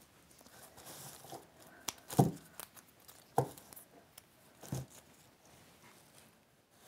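Cut evergreen foliage being handled and trimmed with florist's scissors: leaves rustling, with a few sharp snips and knocks, the loudest about two seconds in.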